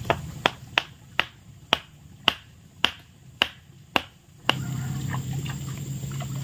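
A run of about ten sharp knocks, a little under two a second and slowly spacing out, then a steady low hum that starts about four and a half seconds in.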